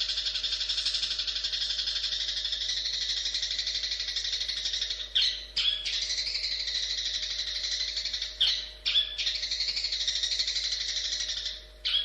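Long-tailed shrike (cendet) singing a continuous, fast twittering song. It is broken a few times by short, louder sharp notes.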